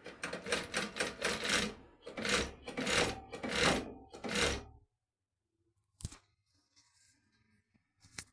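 Sun Special industrial straight-stitch sewing machine with edge trimmer running in a series of short bursts for about five seconds, then stopping. Two sharp clicks follow, one near the end.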